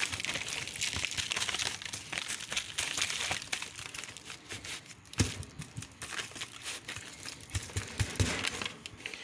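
Brown butcher paper crinkling and rustling as hands move and turn raw steaks on it, busiest in the first half. There is a sharp thump about five seconds in and a few softer ones near the end.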